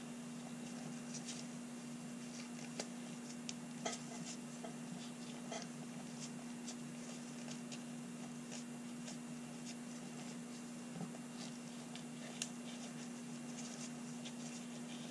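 Faint rubbing of a cloth over small blued revolver parts in gloved hands, with soft scattered clicks and ticks as the small parts are handled and set down. A steady low hum runs underneath.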